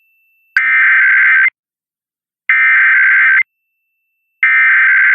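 Emergency Alert System SAME header: three harsh bursts of digital data tones, each just under a second long with about a second of silence between. This burst pattern is the coded header that opens an EAS alert, here a required monthly test.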